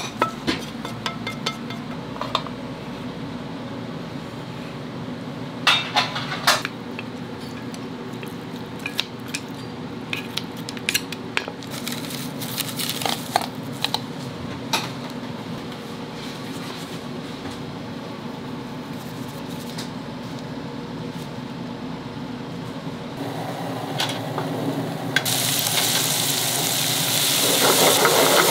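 Restaurant kitchen cooking: metal utensils and dishes clinking and knocking over a steady low hum. About 25 s in, a loud sizzle starts as food is fried in a hot pan.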